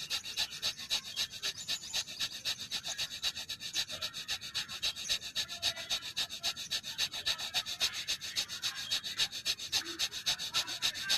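Rapid, forceful breathing through the left nostril with the right held shut: an even run of sharp, hissing nasal breaths, several a second, that stops near the end.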